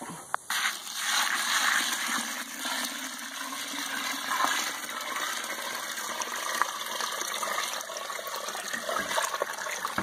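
Water pouring into a bucket of poultry feed, filling it up for fermenting; the rush of water starts about half a second in and runs on steadily.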